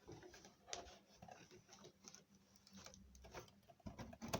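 Faint rustling and light, irregular clicks as a strip of gummed paper tape and cardboard are handled.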